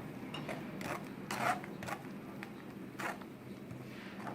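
Blended orange and lemon pulp being worked through a mesh strainer: a few short, faint rasping scrapes against the mesh.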